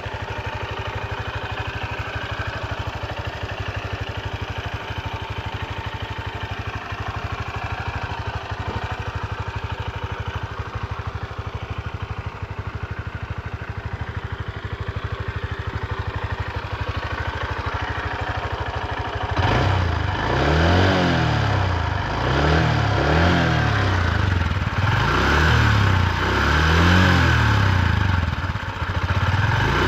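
2024 Honda CB125F's 124 cc single-cylinder four-stroke engine running steadily at low revs, then about two-thirds of the way through it pulls away louder, its pitch rising and dropping several times as it works up through the gears. It is kept at low revs because the new engine is being run in.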